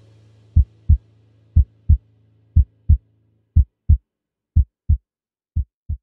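Heartbeat sounds: six evenly spaced lub-dub pairs of low thumps, about one pair a second. Under them the last of some soft background music fades out about three and a half seconds in.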